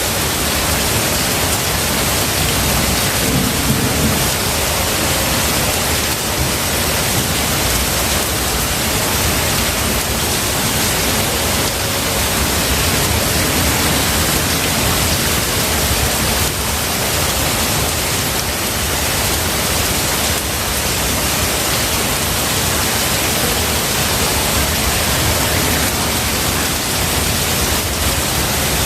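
Heavy rain falling steadily, a dense even hiss, with a brief low rumble of thunder about four seconds in.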